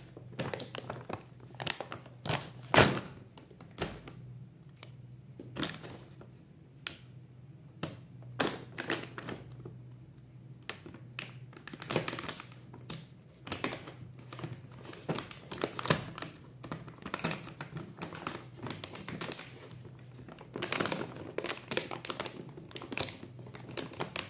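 Plastic snack packaging handled while a cashew pouch is opened by hand: irregular crinkling and rustling of the plastic, with a few sharper knocks, the loudest about three seconds in.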